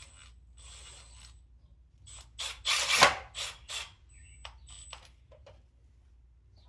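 Metal exhaust vent pipe of a gas water heater being handled and fitted: a run of short scraping and rattling strokes with clicks, loudest about three seconds in.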